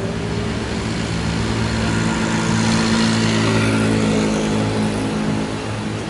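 A man's extremely long, loud burp: a deep, rough, sustained belch that swells to its loudest midway and does not break off.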